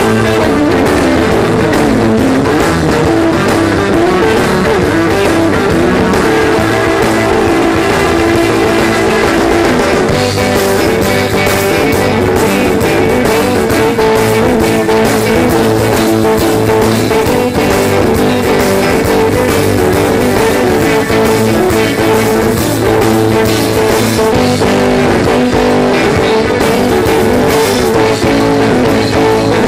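Live rock band playing an instrumental passage: guitar over a drum kit, at a steady loud level.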